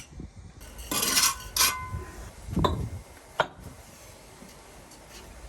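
Steel bricklaying trowel clinking and scraping against brick and mortar: two ringing metallic clinks about a second in, then two sharper taps near the middle.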